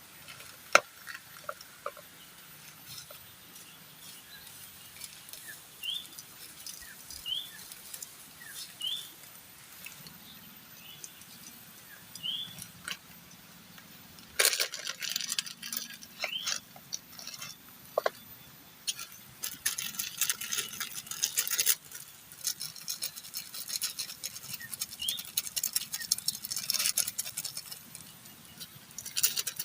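A bird repeats a short rising call every second or so, over scattered light clicks. About halfway in, a dense, bright crackling patter takes over.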